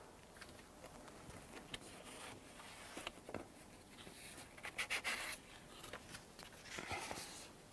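Faint rubbing and scraping of a cardboard drawer-style sandpaper box being slid out of its stack on a shelf, with light clicks. Then the rustle of flexible abrasive sheets being taken out and handled.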